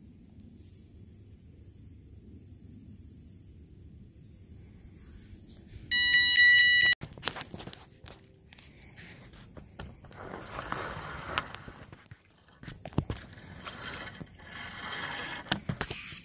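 An electronic rod-tip bite alarm beeps once for about a second, a loud steady high beep signalling a fish taking the bait. Rustling, scraping and knocking follow as the rod is picked up and worked.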